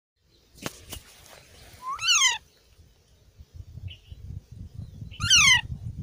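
Indian ringneck parakeet giving two loud, meow-like calls about three seconds apart, each rising then falling in pitch. Two sharp clicks come near the start.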